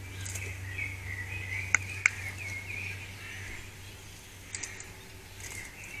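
Small birds chirping and singing over a steady low hum, the song busiest in the first half. About two seconds in come two sharp clicks, a third of a second apart.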